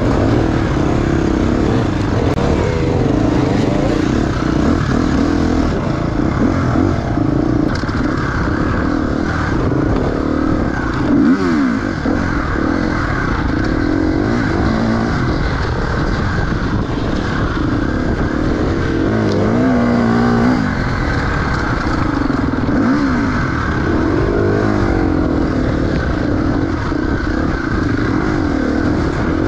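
Enduro dirt bike engine being ridden hard, its pitch rising and falling again and again as the throttle is opened and closed.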